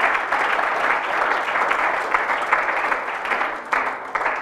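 Conference audience applauding, dense clapping from many hands that thins out near the end.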